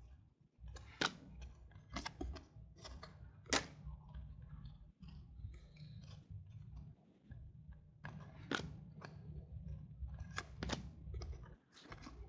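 Football trading cards being flipped and slid against one another in the hands, with irregular crisp snaps and rustles over a low steady hum.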